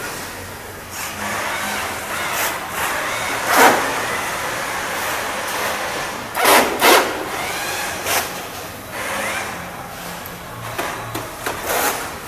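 Assembly-line workshop noise: a steady din of handling and rubbing, broken by sharp clacks and knocks as plastic parts are fitted to electric scooters. The loudest knock comes about a third of the way in, and two more come close together a little past the middle.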